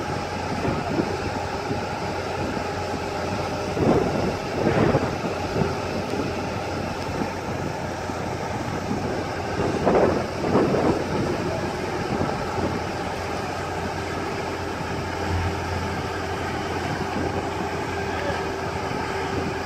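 Truck-mounted mobile crane's diesel engine running steadily under load as it hoists an excavator, with a thin steady whine from about halfway through. Wind buffets the microphone in gusts a few times.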